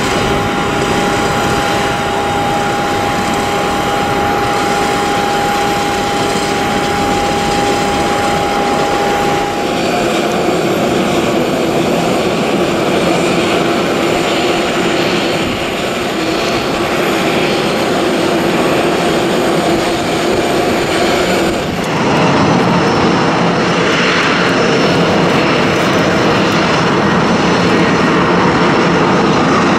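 Jet airliner engines heard in three cut-together clips. First a Boeing 737-800's CFM56 turbofans taxiing with a steady whine. About ten seconds in comes an Airbus A330-300 landing with a lower steady tone, and about twenty-two seconds in an A330 taxiing, a broad rushing engine noise.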